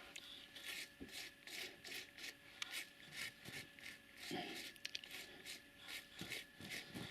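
Loose model-railway ballast granules, a mix of fine and coarse grades, being brushed and rubbed in between the sleepers of the track by hand. Faint, quick scratchy strokes, about three a second.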